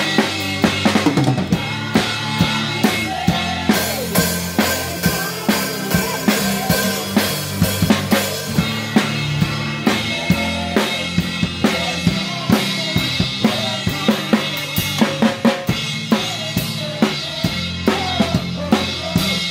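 Live band music driven by a drum kit played by a young boy: a steady beat of kick drum, snare and cymbals, with keyboard and acoustic guitar playing along.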